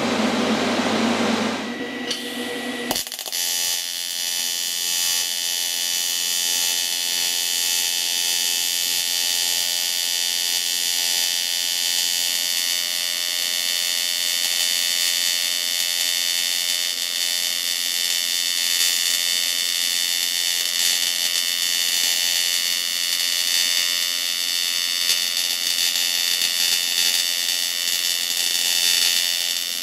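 AC TIG welding arc buzzing steadily as a cast iron grate is brazed with silicon bronze rod, with the machine's AC frequency set to 90 Hz. The arc starts about three seconds in.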